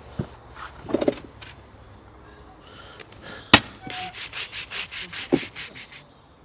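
A few knocks and a sharp click, then a quick run of about a dozen back-and-forth scraping strokes, about five a second, that stop suddenly: hand work rubbing or sawing on a hard surface.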